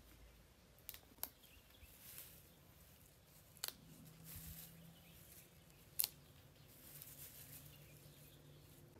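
Fresh parsley and herbs rustling quietly as they are picked over by hand, with four sharp snaps of stems breaking, the loudest about six seconds in.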